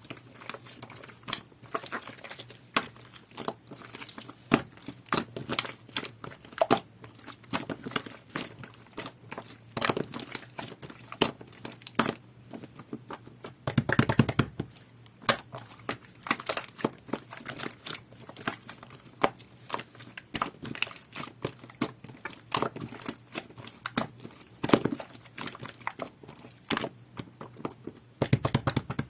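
Jelly-textured slime being squished, stretched and folded by hand, giving a steady run of irregular sticky pops and clicks, with a fuller squelch about halfway through and again near the end.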